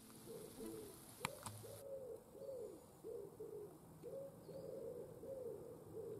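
A pigeon cooing over and over, soft low coos about twice a second, with two sharp clicks just over a second in.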